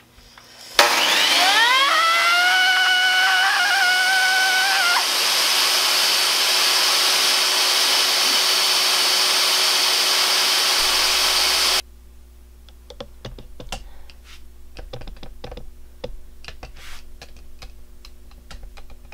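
Electric miter saw switched on about a second in: the motor whines up to speed and runs loud and steady for about eleven seconds, then cuts off abruptly. A run of light scattered clicks and taps follows.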